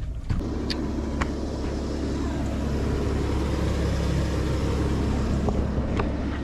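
Dodge Ram pickup truck's engine running steadily, a low rumble, with a few light clicks.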